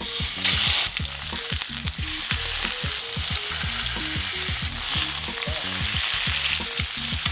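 Chicken frying in a hot pan: a steady sizzle that starts suddenly as the meat goes in and holds throughout.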